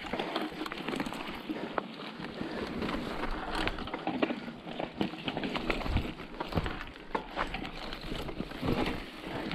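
Mountain bike rolling over a rough dirt trail: a steady noise of tyres on loose ground, broken by frequent short clicks and rattles from the bike.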